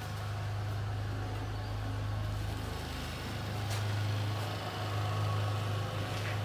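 An engine running at a steady idle, a low even hum, with a light click a little under four seconds in.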